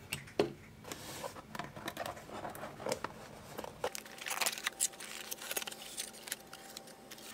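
Cardboard shipping box handled and opened by hand: light taps, scrapes and rustles of cardboard as the inner box is slid out and the flaps are folded open, busiest about four seconds in.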